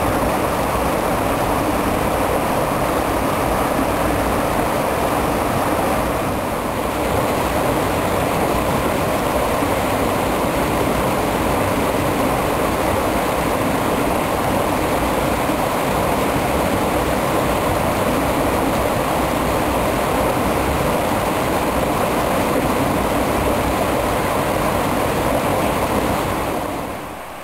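Stream water rushing, a loud steady hiss, with a brief dip about six seconds in and a clear drop in level about a second before the end.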